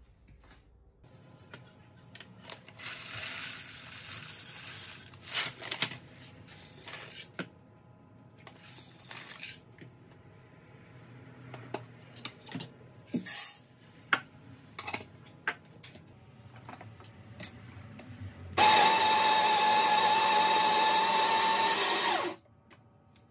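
Baratza Sette 270 conical burr grinder running for about four seconds near the end, a loud steady whine that starts and stops abruptly, grinding coffee for espresso straight into a portafilter held in the grinder. Before it, scattered clicks, knocks and rustling as the grounds bin and portafilter are handled.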